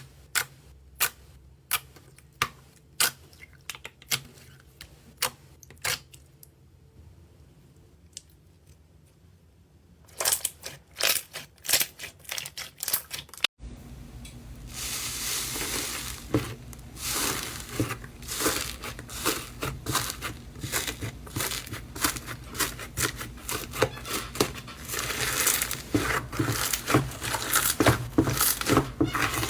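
Slime being handled: first sharp separate clicks about twice a second, pausing for a few seconds, then after an abrupt change a dense, continuous crackling and crinkling as the slime is squeezed.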